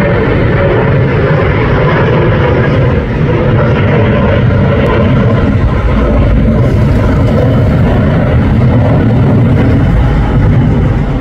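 Jet engines of a British Airways Airbus A320-family airliner climbing out after takeoff: a loud, steady rumble with a broad hiss over it.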